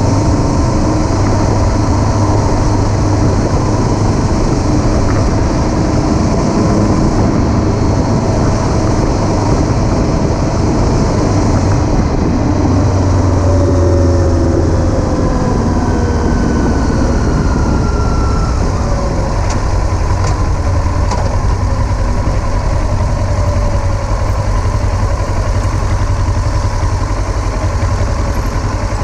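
Kawasaki Versys 650 parallel-twin engine running steadily at riding speed under a constant rush of wind and road noise, its note shifting in pitch a little past the middle.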